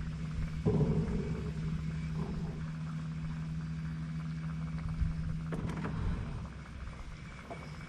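Electric trolling motor humming at a steady pitch, then switched off about five and a half seconds in.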